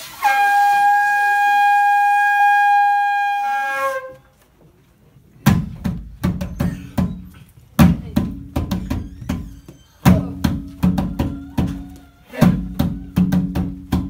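A shofar sounds one long steady blast of nearly four seconds that dips in pitch as it ends. After a short pause, a hand drum is struck by hand in an uneven run of strokes, a couple to a few each second, each with a low ringing note.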